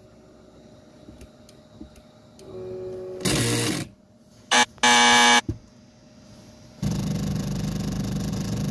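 Creality CR-6 SE 3D printer's stepper motors driving the print head during auto-leveling: a few faint ticks, then several short separate whining, buzzing moves, loudest just past halfway. A steady noise with a low hum then sets in and carries on. The leveling is going wrong, which the owner traces to a loose cable in a connector.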